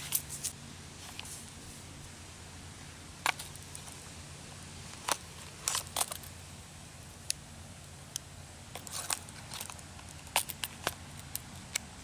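Fingers handling a leather belt sheath and the tools in it: scattered light clicks and crackles over a faint steady low hum.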